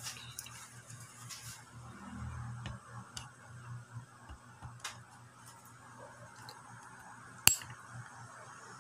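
Fresh moringa branches rustling as they are handled into a plastic colander in the first second or two, then a quiet room with scattered light ticks and one sharp click about seven and a half seconds in.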